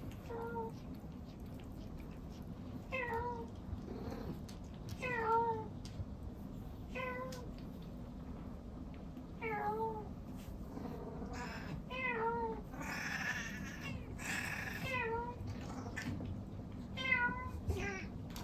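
A domestic cat meowing over and over, one drawn-out call about every two seconds, with a couple of harsher, noisier cries around the middle.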